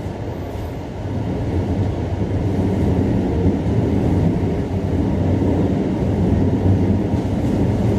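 Running noise heard inside a moving electric train car: a steady low rumble of wheels and running gear, louder from about a second in.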